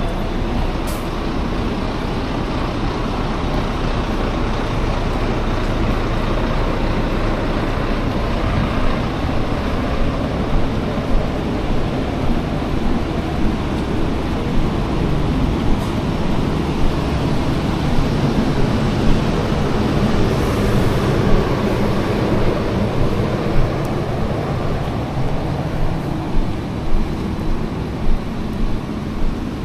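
Road traffic on a wet city street: a steady rush of passing cars and buses, swelling as a heavier vehicle goes by about two-thirds of the way through. From about ten seconds in, footsteps thud about once a second.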